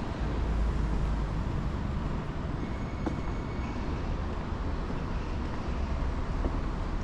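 Street traffic ambience: a continuous low rumble of passing vehicles, heavier for the first second or so.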